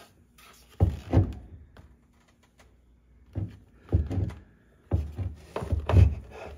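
Black plastic engine-bay cover on a Sea-Doo personal watercraft being worked loose and lifted out, giving clusters of plastic knocks and thuds: a pair about a second in, more around four seconds and a run near the end.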